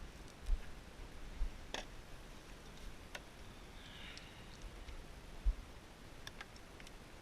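Scattered light clicks and taps of tools and parts being handled during work on an engine, with a few soft low bumps, the loudest about five and a half seconds in, and a brief scrape around four seconds in.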